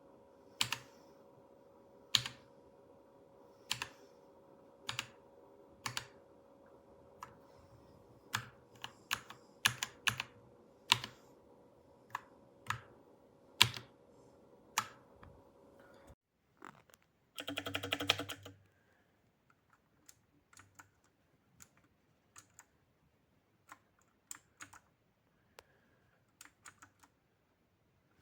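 Keystrokes on a Dierya DK61se mechanical keyboard with red linear switches: single keys pressed one at a time, about one a second, then a quick flurry of presses about two-thirds of the way in, then lighter, scattered keystrokes. A faint steady hum underneath stops suddenly a little past halfway.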